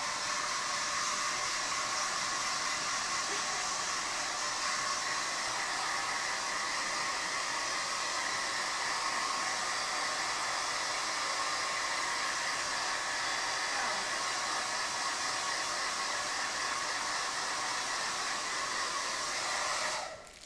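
Hair dryer blowing steadily while drying a wet dog's coat, then cut off suddenly just before the end.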